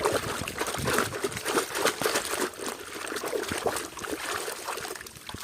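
Water trickling and splashing as a muddy toy vehicle is washed, with small scattered knocks.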